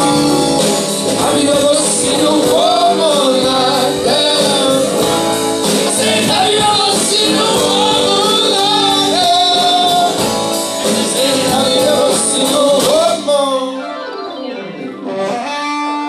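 Live band playing rock with electric guitars. About thirteen seconds in, the drums and bass drop away and the music thins out to quieter guitar.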